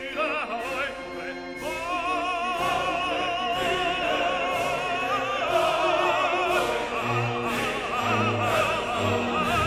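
Background music: operatic singing with wide vibrato over orchestral chords and a steady beat.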